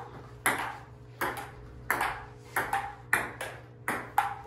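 Table tennis rally: the ball knocking back and forth off the paddles and the table, about two sharp knocks a second, some with a short ringing note after the bounce.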